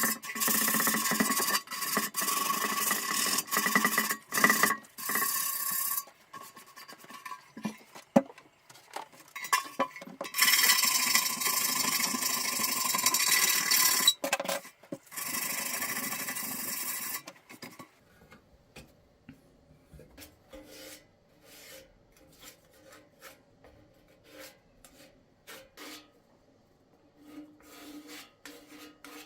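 Rasping, rubbing abrasive work on a motorcycle part, in two long stretches, followed in the second half by faint scattered taps and clicks.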